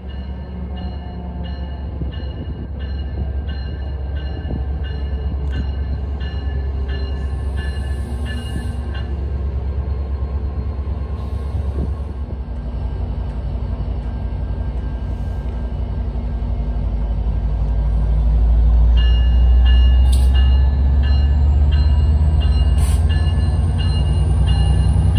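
Metra EMD F59PHI diesel locomotive pulling a commuter train into a station, its engine rumble growing steadily louder as it draws near and slows. A bell rings about twice a second for the first several seconds and again in the last few seconds.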